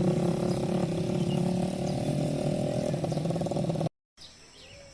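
An engine running steadily with a low, buzzing drone, cut off abruptly a little before the end. Faint birds chirp in the quieter stretch that follows.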